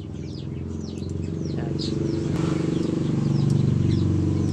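A motor vehicle engine running steadily, growing louder from about a second in, with birds chirping over it.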